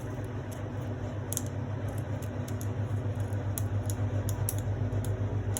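Plastic shrink-wrap being peeled and torn off an album, crinkling in scattered small clicks, over a steady low hum.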